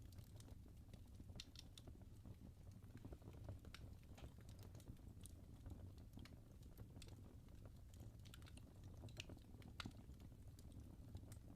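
Wood fire in a fireplace crackling softly: scattered small pops and clicks from the burning logs over a low, steady rumble.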